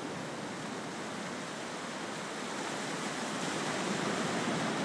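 Steady rushing noise with no pitch in it, swelling a little after the middle.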